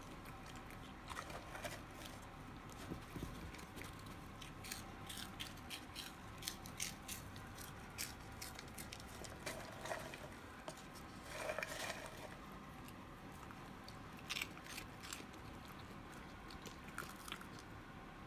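Faint crunching and chewing of small snacks, with scattered soft clicks and a brief louder patch a little past the middle.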